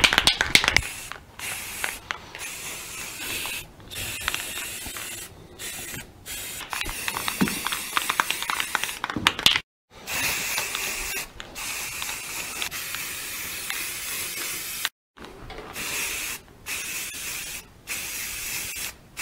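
Aerosol can of primer spraying in repeated bursts of hiss with short pauses between them, with a quick run of sharp clicks near the start.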